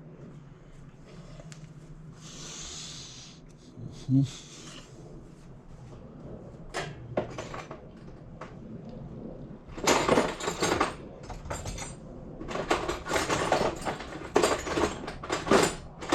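Metal hand tools being handled and rummaged through, clinking and rattling in clusters, with a single knock about four seconds in.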